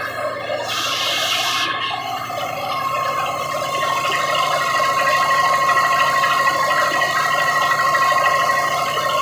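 1000 kVA Cummins diesel generator set running steadily, a high steady whine over the engine noise. A short hiss sounds about a second in.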